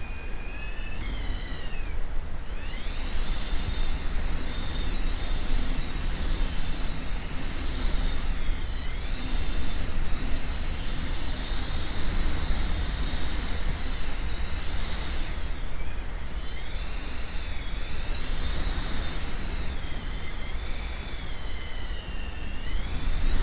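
Typhoon-force wind gusting, whistling in several high, wavering tones that rise and fall with the gusts, over a constant low rumble.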